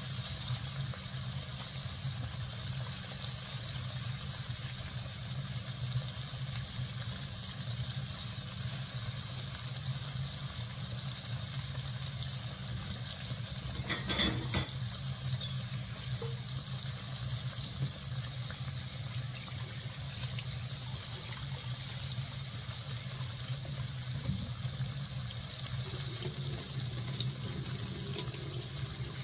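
Chicken livers deep-frying in hot oil: a steady sizzle of bubbling oil, with a brief clatter about 14 seconds in.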